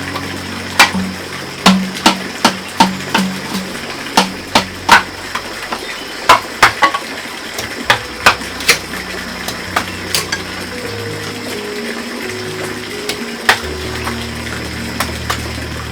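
Kitchen utensils knocking and clinking against dishes: a string of sharp, irregular knocks, most of them in the first nine seconds and scattered after that. Soft background music with low held notes plays underneath.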